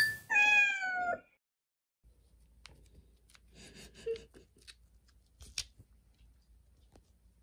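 A cat's meow: one call about a second long, falling slightly in pitch. After it, only faint light rustles and taps.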